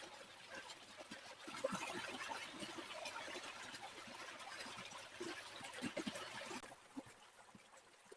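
Small stream trickling and babbling, with many small plops and splashes of water. The flow grows quieter and duller about two-thirds of the way through.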